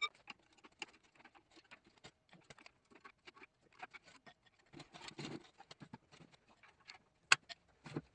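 Scattered light clicks, clinks and knocks of tools and metal drivetrain parts being handled during an engine-and-transmission teardown, with a brief scuffling stretch about five seconds in and one louder sharp clack near the end.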